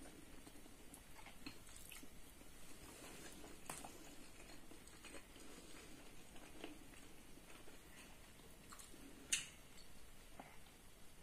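Quiet close-up chewing and mouth sounds of a person eating a mouthful of rice and curry, with scattered small clicks, a sharper click about nine seconds in.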